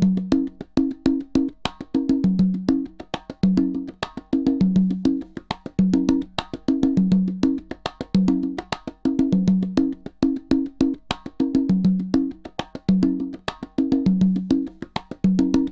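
Rhythmic percussion loop used as a surround speaker-setup test signal for matching the front-left and left-surround speaker levels: sharp wood-block-like clicks over short low notes that alternate between two pitches, repeating steadily.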